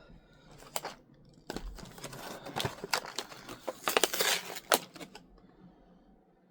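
Plastic food packaging crinkling and crackling as it is handled, in irregular bursts of crackles and clicks that stop about five seconds in.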